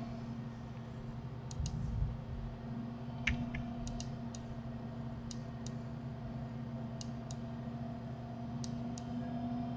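Scattered clicks of a computer mouse and keyboard, about a dozen, often in close pairs, over a steady background hum. A soft low thump comes about two seconds in.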